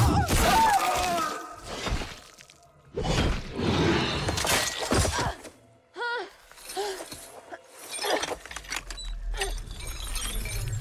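Film chase soundtrack: several loud crashing, shattering bursts of sound effects. About six seconds in comes a young woman's short, strained cry.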